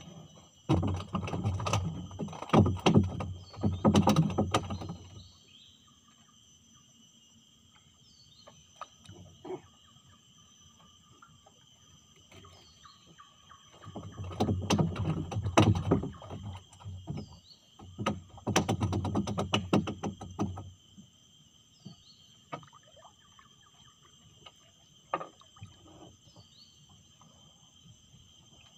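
Steady high-pitched insect chorus of crickets or cicadas, with a short falling chirp every few seconds. Twice, about a second in and again midway, it is drowned by several seconds of loud rustling and knocking close by.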